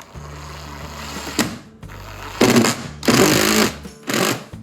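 Power screwdriver driving wood screws through a door hinge into screw holes packed with wood splinters, the screws biting firmly. A steady low hum for about the first two seconds, then the driver runs in several short bursts.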